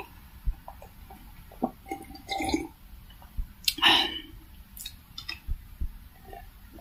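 Close-miked drinking: kiwi juice sipped and swallowed from a glass, with small wet mouth and lip clicks. About four seconds in, between sips, there is a short louder breathy sound from the mouth.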